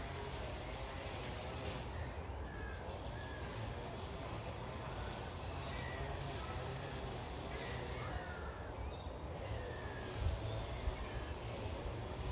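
Outdoor ambience: a steady hiss with a low, buffeting rumble of wind on the microphone. Faint chirps of small birds come through now and then.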